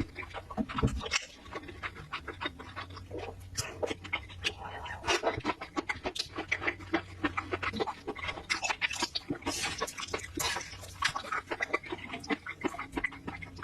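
Close-miked eating sounds: wet chewing and slurping of food, with many small sticky clicks and smacks from the mouth.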